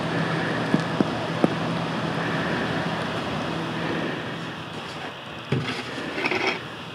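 A steady mechanical hum with a few light knocks, then a shovel blade scraping and crunching into heaps of smouldering husks, in short strokes near the end.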